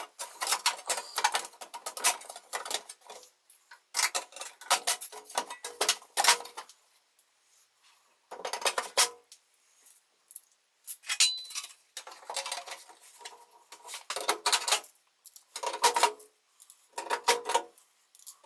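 Aluminium sheet panel being worked into place in a car chassis, with irregular metallic clinks and rattles from the sheet and from small metal fasteners handled in the hand. There are short quiet pauses between the clusters.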